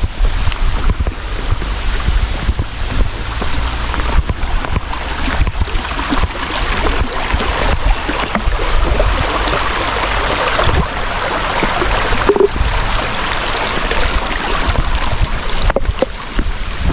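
Waterfall's water rushing and splashing in a steady, loud rush, with wind buffeting the microphone as a low rumble.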